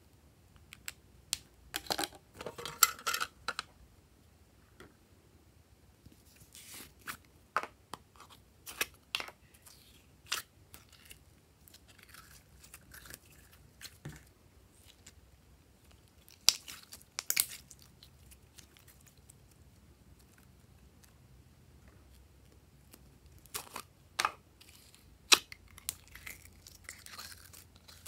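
Glossy slime being worked by hand, giving off sticky crackles and pops in irregular clusters, busiest about two seconds in, around seven to ten seconds, around seventeen seconds and near the end.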